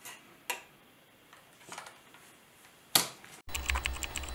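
Clear plastic CPU clamshell tray clicking and crackling as it is handled, with a few light clicks and one sharp click about three seconds in. Music with a low bass starts abruptly near the end.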